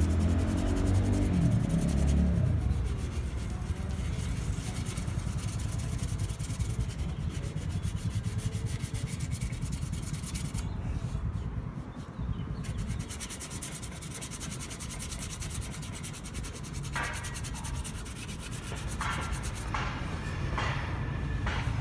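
Sandpaper rubbed by hand over a primed aluminum car wheel, a steady scratchy rasp of short back-and-forth strokes, with a few sharper scrapes near the end, over a low background rumble.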